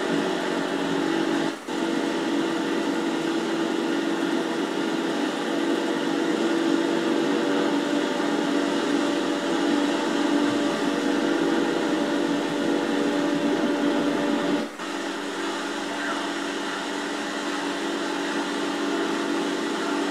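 Honda BF15 outboard motor running steadily under way, heard through a Super 8 magnetic sound track, which drops out briefly twice, about a second and a half in and near three-quarters of the way through.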